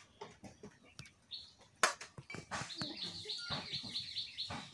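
A small bird chirping a fast run of repeated high notes through the second half. Before it come light clinks and one sharp clank of metal serving utensils against pots and plates.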